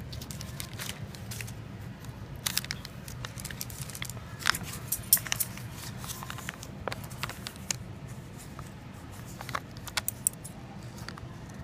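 Crumpled metallic foil wrapper crinkling and crackling as it is handled, in scattered sharp crackles that come and go, over a steady low hum.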